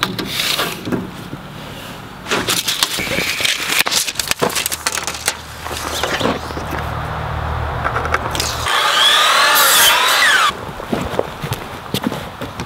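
Electric miter saw cutting through a wooden board: about two seconds of loud cutting noise starting near nine seconds in, the loudest sound. Before it come clicks and knocks of handling the board and tape measure, then a few seconds of low steady hum.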